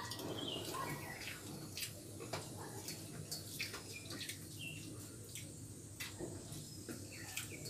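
Quiet hand-eating sounds: fingers mixing rice on steel plates, with small clicks, taps and chewing. Faint bird chirps come in now and then in the background.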